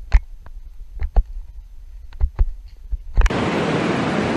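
A few irregular knocks and thumps over low wind rumble, then, about three seconds in, the steady rushing of a fast mountain river starts abruptly and is much louder.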